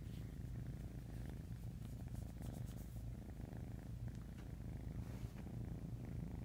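Domestic cat purring steadily, a low continuous rumble with the camera close against its fur.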